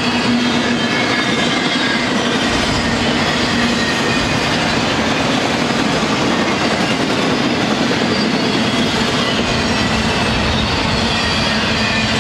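Freight train cars, auto-racks and double-stack container cars, rolling past at close range: a steady loud rumble and rattle of steel wheels on the rails, with faint thin high-pitched squealing.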